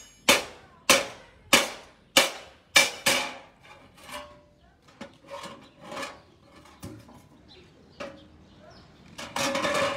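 Hand hammer striking a copper sheet laid over a steel bench, about one blow every 0.6 s, six ringing strikes in the first three seconds. Then softer, scattered knocks as the copper is handled, and a louder clattering noise near the end.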